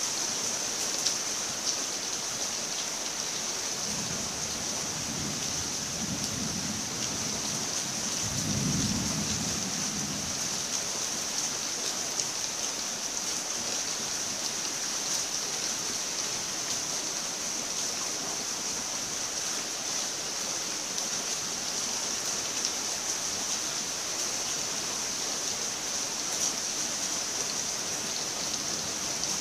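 Steady rain falling, with occasional louder drops. A low rumble of distant thunder rolls in about four seconds in and fades by about ten seconds, strongest near the nine-second mark.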